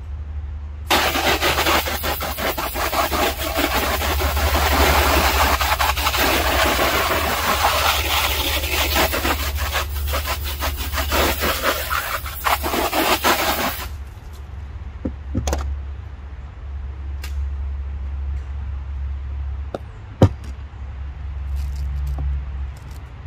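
Garden hose with a spray nozzle spraying water onto a hand: a hissing spray that starts about a second in and cuts off suddenly after about thirteen seconds. A few light clicks follow, then one sharp knock near the end, over a low hum.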